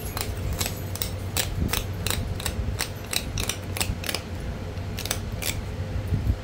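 Florida coral arrowhead preform being worked by hand with knapping tools: an uneven run of sharp little clicks, two or three a second, that stops about a second before the end. A steady low hum lies underneath.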